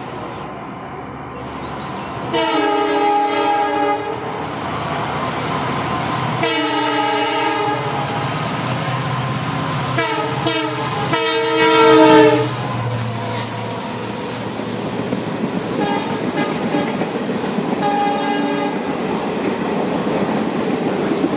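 EMD WDP4 diesel-electric locomotive sounding its horn in a series of blasts as it approaches, the longest and loudest just past the middle, then two shorter, fainter ones. Beneath the horn runs the steady rumble of the locomotive and the passenger coaches' wheels on the rails.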